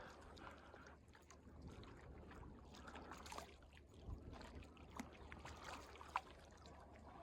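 Near silence: faint outdoor background with a low wind-like rumble and a few light scattered clicks.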